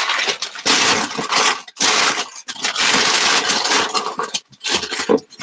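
Crinkling and rustling of packing fill being worked into a cardboard shipping box, in loud irregular bursts with short gaps.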